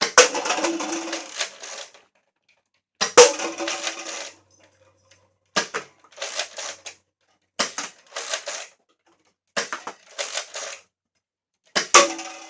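Nerf Zombie Strike SlingFire lever-action dart blaster firing six times, about two seconds apart. Each sharp snap is followed by a brief clattering rattle.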